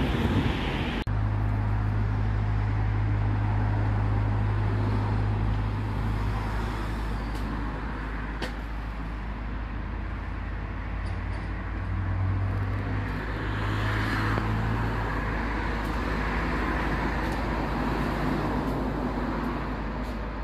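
Steady motor-vehicle rumble and traffic noise, with a low engine hum that starts about a second in and fades out around fourteen seconds in.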